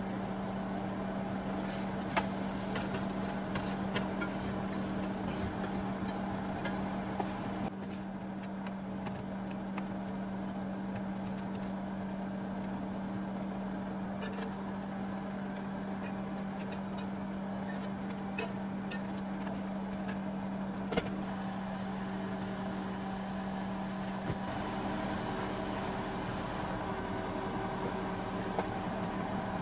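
A steady mechanical hum at one pitch, with a few faint light clicks and taps over it.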